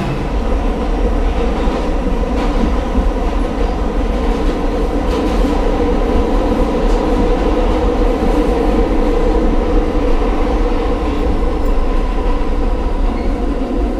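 New York City subway train heard from inside the car as it runs between stations: a loud, steady rumble with the clatter of the wheels on the track.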